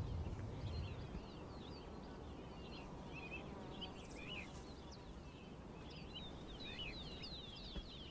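Birds twittering in many short, high chirps, faint, over a low steady outdoor background rumble.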